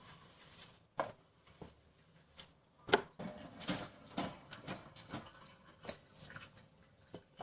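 Kitchen clatter while a dinner plate is handled and washed: a string of separate knocks and clinks, the loudest about three seconds in.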